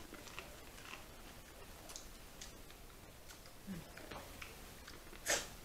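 Quiet eating sounds: scattered small clicks and mouth smacks, a brief low 'mm' about three and a half seconds in, and a sharper click near the end.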